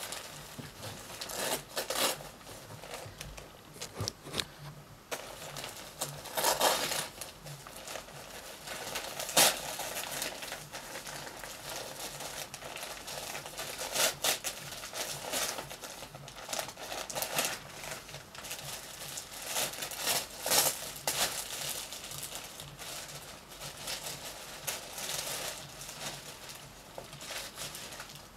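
Gift wrapping paper being torn and crumpled as presents are unwrapped, in irregular rustling bursts, with one louder crackle about nine seconds in.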